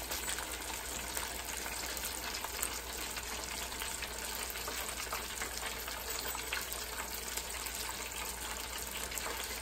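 Breaded fish fillets deep-frying in hot oil in an electric deep fryer's two baskets: a steady sizzle with fine crackling and bubbling.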